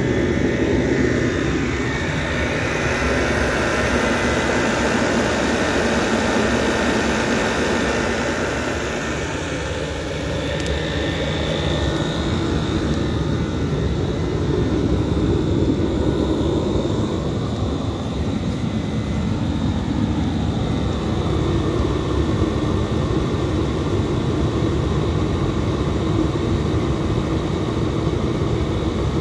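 Dayton 125,000 BTU portable oil-fired forced-air heater running and lit: its blower fan and burner make a loud, steady rushing drone that shifts slightly in tone around the middle.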